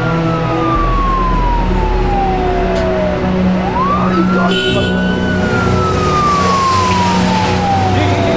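Emergency vehicle siren wailing: one tone falls slowly, climbs quickly back up about halfway through, then falls slowly again.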